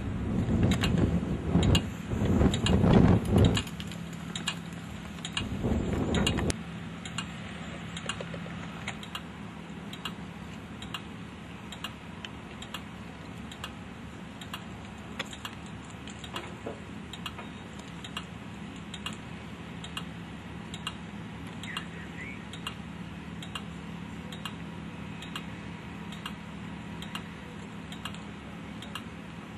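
Gusts of wind buffeting the microphone for the first few seconds and again briefly around six seconds in. After that comes a steady low hum with a regular light ticking.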